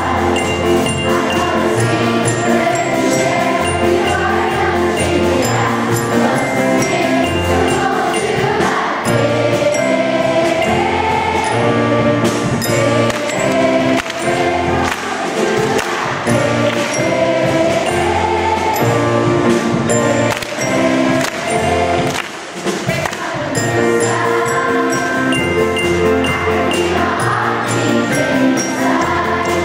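Music: a choir singing an upbeat song over a steady bass line, with bright chiming notes on top. The music dips briefly about two-thirds of the way through.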